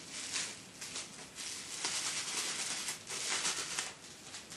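Packaging being handled and unwrapped by hand, rustling in irregular swells.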